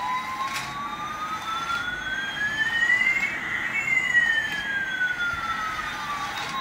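Electronic sound effect from a battery-operated toy airliner: a siren-like tone that rises slowly for about three and a half seconds, then falls back, with a fainter tone gliding the opposite way above it.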